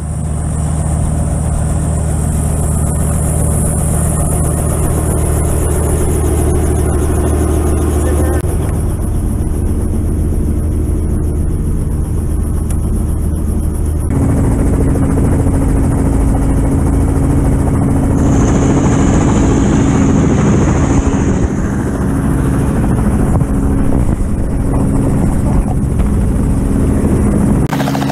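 Light helicopter running: the steady drone of its engine and rotor, heard close by on the ground and then from inside the door-off cabin after a cut about halfway through.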